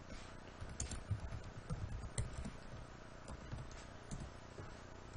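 Faint, irregular keystrokes on a computer keyboard as a short name is typed.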